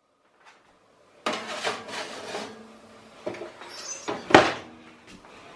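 After about a second of silence, a metal baking tray clatters and scrapes as it is slid into an oven, then the oven door is shut with a sharp knock about four seconds in, the loudest sound.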